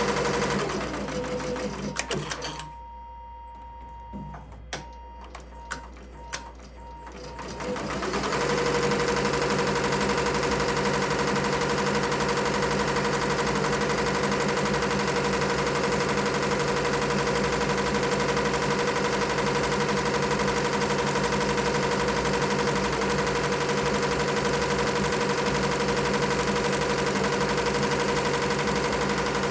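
Multi-needle embroidery machine stitching at speed with a steady running clatter. About a second in it winds down to a stop, a few sharp clicks follow, and around eight seconds in it speeds back up and runs steadily again.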